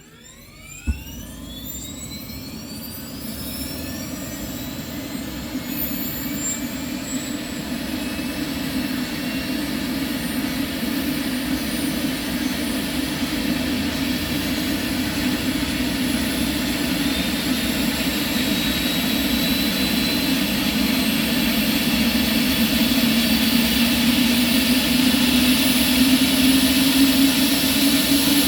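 Airbus ACH145 (BK117 D-3) helicopter's turboshaft engines starting: a whine rising in pitch from near quiet, a sharp click about a second in, then the turbine and rotor sound growing steadily louder as the rotor spins up.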